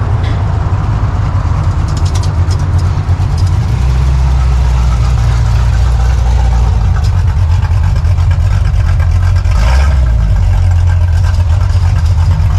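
A 1987 Chevrolet Monte Carlo SS's V8 engine running steadily, with a loud, deep, even note.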